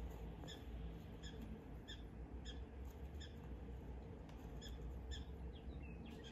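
Faint, short, high chirps repeating about one and a half times a second, with a brief pause midway, over a steady low background rumble.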